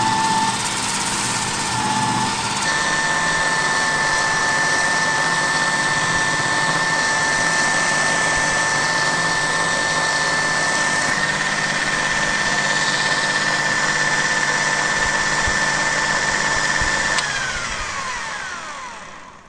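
Angle grinder running with a DVD mounted on its spindle as a knife hone, a knife edge held to the spinning disc: a loud steady whine. About 17 seconds in it is switched off and the whine falls in pitch and fades as the disc spins down.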